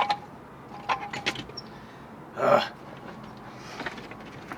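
Short metallic clicks and clinks from the spare-tire hoist hardware under a Dodge Durango being worked by hand, a few in the first second and a half and fainter ones near the end, with a grunt of frustration in the middle.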